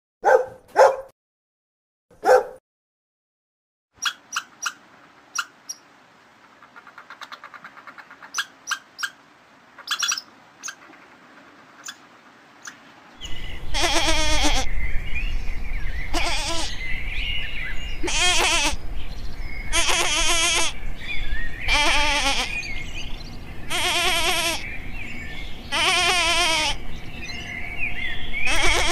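A dog barks a few short times, followed by a quieter stretch of scattered clicks. From about halfway through, a goat bleats repeatedly, long wavering bleats about every two seconds, over a steady low rumble.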